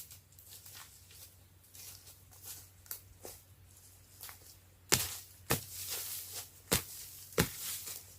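Irregular sharp cracks and knocks with rustling between them: faint ones at first, then four louder cracks in the second half, about half a second to a second apart.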